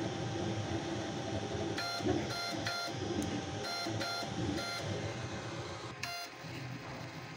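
Flsun Q5 delta 3D printer running a print: a steady whir underneath, with short high-pitched tones from the stepper motors as the print head moves. There are about six brief tones in quick succession a couple of seconds in, and one more near the end.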